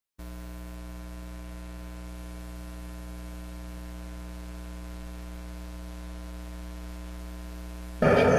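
Steady electrical mains hum, one low droning tone with its overtones and no change in pitch. About eight seconds in, a much louder noisy sound begins suddenly.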